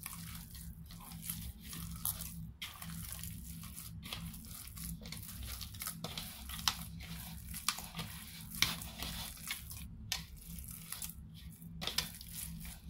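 Hands kneading soft, sticky bread dough in a metal bowl: irregular squishing and tearing sounds as the dough is pressed, pulled and folded. A steady low hum runs underneath.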